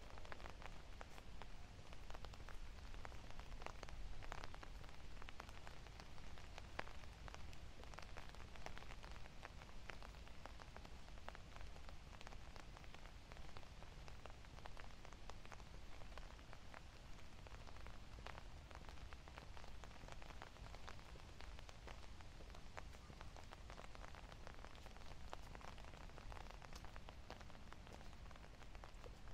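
Light rain falling: many small, irregular drop ticks over a steady hiss, with a low rumble underneath.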